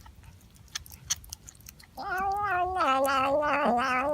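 Domestic cat giving a long, drawn-out yowl that starts about halfway through, dips slightly lower in pitch and turns wavering and pulsing as it goes on. Faint clicks come before it.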